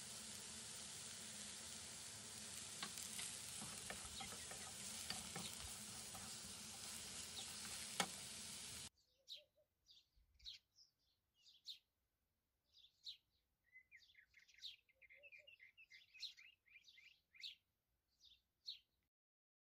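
Sliced mushrooms sizzling in a non-stick frying pan, a steady hiss with occasional light clicks, cutting off abruptly about nine seconds in. After that, only faint, short, high chirps are heard.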